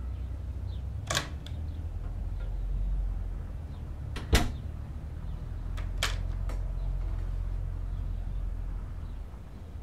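A door being opened and handled: a few sharp clicks and knocks, the loudest about four seconds in, over a steady low rumble.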